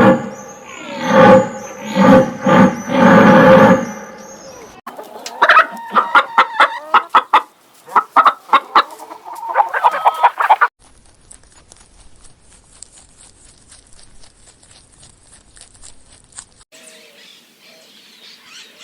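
Chickens: a rooster crows loudly in several syllables, then a hen clucks in a quick run of short clucks until about ten seconds in. After that only faint, scattered ticking remains.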